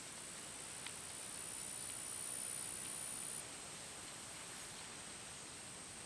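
Faint, high-pitched insect trill held steady for about three seconds and then cutting off suddenly, over a constant high insect hum and hiss. A single faint click about a second in.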